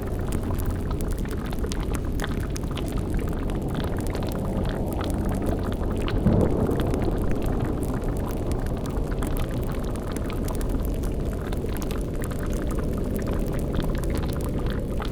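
Bubbling cauldron boiling sound effect: a dense, low, steady bubbling rumble with scattered small crackles over it, swelling louder briefly about six seconds in.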